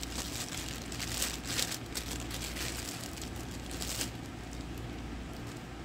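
Thin clear plastic sleeve crinkling as it is worked off a doll's arm by hand, stopping about four seconds in.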